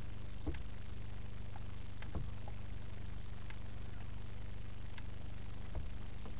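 Steady low electrical hum with hiss from a security camera's audio, with a few faint soft ticks about half a second, two seconds and near six seconds in.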